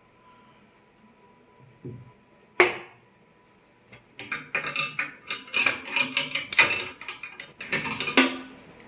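Small steel parts (seats, ball stud and shims) clinking against the metal end of a GM Z-bar held in a vise: a dull knock, a sharp clink, then a quick flurry of metallic clinks and rattles through the second half, as the frame end is taken apart to add a shim.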